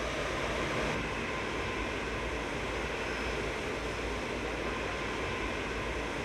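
Jet airliner engines at taxi power, a steady rush with a faint high whine; the sound shifts about a second in, to a Rolls-Royce-powered British Airways Boeing 777 taxiing close by.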